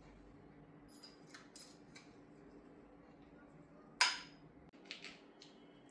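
Metal tools or parts clinking during turbocharger repair work: a few light taps, then one sharp clank about four seconds in, followed by two smaller clinks, over a faint steady low hum.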